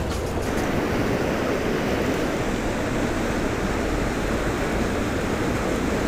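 Fast-flowing mountain river rushing steadily over rapids.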